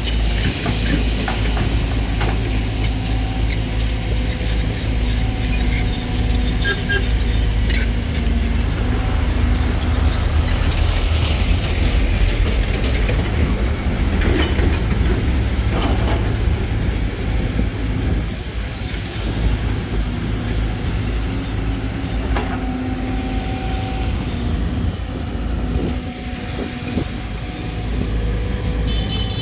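Volvo EC210D crawler excavator's diesel engine running steadily under load as it digs and swings, with the pitch of the hydraulics rising and falling and a few knocks from the bucket in the dirt.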